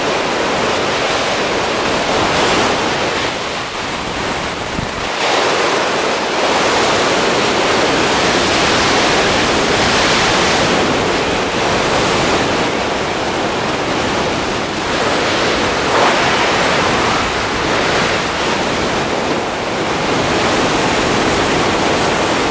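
Loud, steady rush of freefall wind buffeting the camera's microphone during a skydive.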